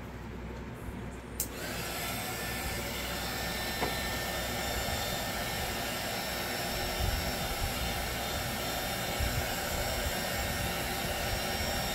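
Handheld hot-air blower clicking on about a second and a half in, then running steadily with a whooshing hiss and a few steady tones.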